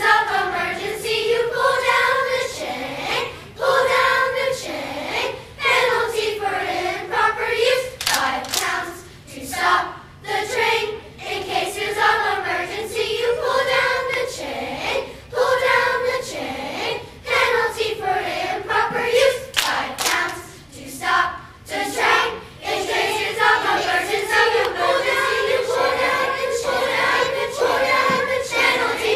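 Children's choir singing a two-part round, the two groups of voices overlapping as they sing different parts of the tune at once, with frequent short sharp accents.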